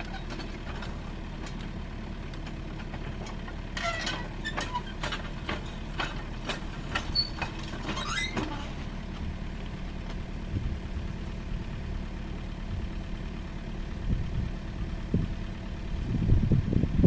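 Excavator's diesel engine running steadily at idle, with a run of sharp metallic clanks for a few seconds in the middle and a heavier low rumble coming in near the end.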